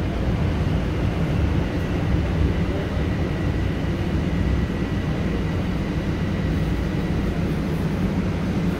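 A Bombardier Toronto Rocket subway train heard from inside the car as it runs slowly along the station platform, coming in to stop: a steady low rumble of wheels and running gear, with a faint steady whine over it for the first few seconds.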